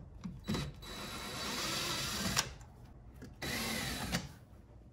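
Cordless drill-driver running in two bursts, backing out screws from the bottom of a car's center console: a longer run of about a second and a half, then a shorter one near the end.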